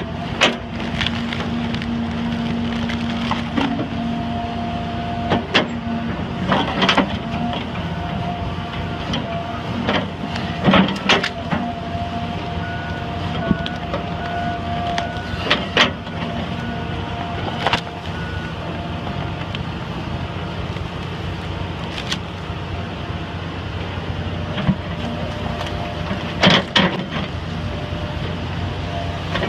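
Heavy machinery engine running steadily, with scattered sharp knocks and cracks. A short run of evenly spaced beeps comes about halfway through.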